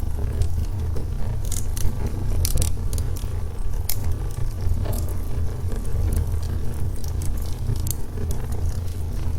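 Burning logs in a fireplace crackling, with sharp pops at irregular moments over a steady low rumble from the fire.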